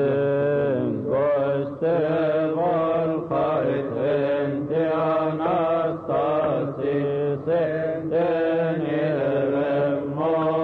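Coptic liturgical chant: voices singing a slow hymn line in unison, with long, wavering held notes over a steady low hum.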